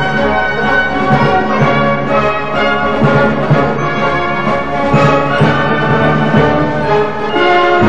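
Orchestral music with held brass chords.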